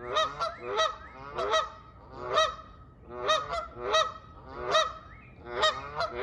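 Geese honking repeatedly, a string of short nasal honks coming about two a second.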